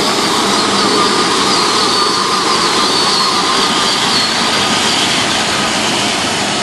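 Several modified Power Wheels ride-on toy vehicles, with electric motors upgraded to 24 volts and more, whining as they race away over grass: a steady, slightly wavering high whine over a dense rushing noise.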